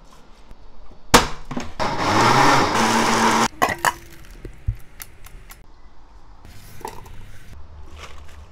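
Electric blender grinding salted shrimp and red peppers for about two seconds, then cutting off abruptly. Light clinks and knocks of a spoon and steel jar come before and after it.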